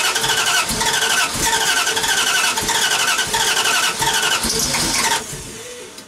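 Starter motor cranking a Dodge 5.9 Magnum V8 in an even, rhythmic churn without the engine catching, stopping about five seconds in. It is a failed start, which the owner puts down to flooding and a fouled spark plug.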